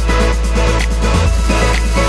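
Upbeat electronic background music with a steady beat.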